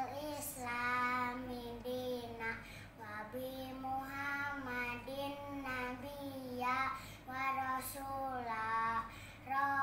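A young boy chanting the Arabic prayer before study in a sing-song melody, drawing out notes in several phrases with short breaths between.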